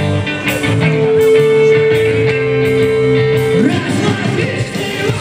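Rock band playing with electric guitars. One long note is held for about three seconds, then slides away in pitch near the end.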